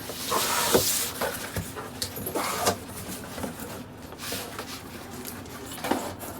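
Gift-wrapping paper rustling and tearing as a wrapped package is opened, with a loud crinkling burst at the start and then irregular crackles and handling noises.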